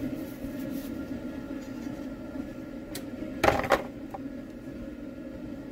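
A steady low machine hum, with one brief clatter about three and a half seconds in.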